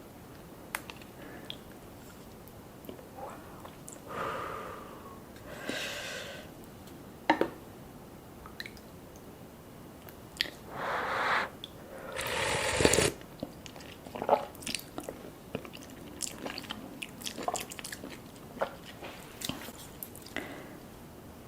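Close-up eating sounds of a person biting and chewing spicy fish cake and ham gimbap: wet mouth clicks and smacks, with a few longer, louder stretches midway.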